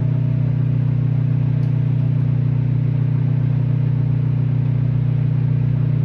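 Microwave oven running on high, a loud steady low hum from its transformer and fan, as it heats cotton candy that has melted down into bubbling, smoking sugar.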